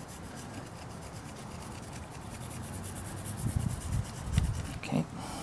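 An M16 star chamber brush scrubbing carbon deposits out of a motorcycle cylinder head's exhaust port: a steady, rapid scratching, with a few dull knocks a little past halfway.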